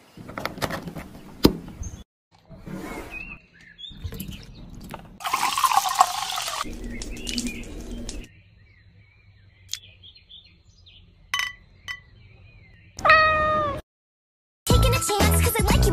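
A cat gives one short meow about thirteen seconds in, the loudest pitched sound here. Before it, kitchen sounds: a few knocks of chopping and food handling, then liquid poured into a glass with a few faint clinks.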